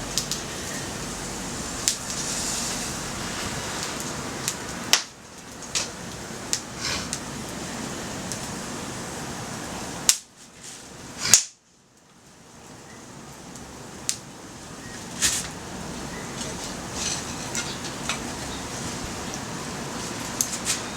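Wood fire of slightly damp firewood and branches crackling, with sharp pops every second or two over a steady rushing noise. The background noise drops away briefly twice, around five seconds in and again just before the loudest pop about eleven seconds in.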